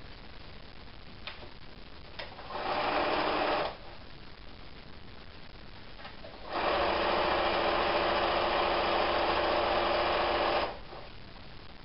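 Electric domestic sewing machine stitching a seam through fabric strips: a short run of about a second, then a steady run of about four seconds, with a couple of light clicks before them.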